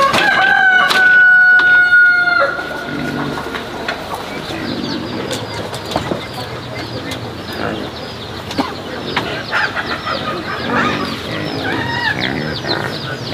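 A rooster crows once, a long held call that stops about two and a half seconds in. After it come many small birds peeping in quick, high, falling notes, with low clucking among them and an occasional knock.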